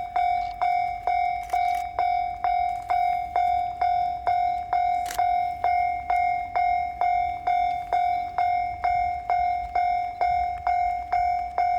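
Japanese railway level-crossing warning bell ringing steadily: one repeated ding about two and a half times a second, each strike dying away, the signal that a train is approaching the crossing.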